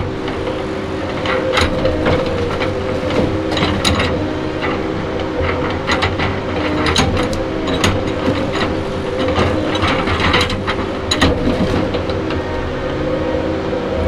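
Diesel engine of a heavy logging machine running steadily, with frequent sharp clanks and knocks over it.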